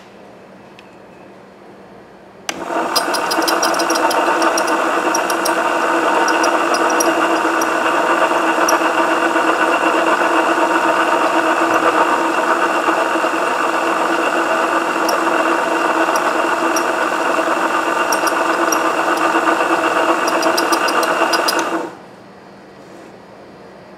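Coil-winding machine running steadily while it winds magnet wire onto a subwoofer voice-coil former, laying the first layer of an in-out coil. It starts suddenly about two and a half seconds in, runs with a steady whine and light irregular ticking, and stops about two seconds before the end.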